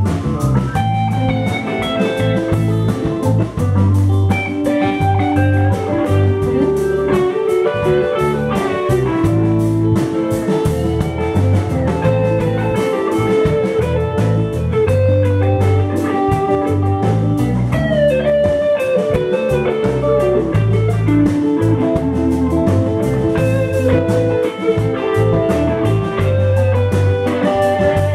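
Live band jamming on electric guitars and keyboard, with drums keeping a steady beat.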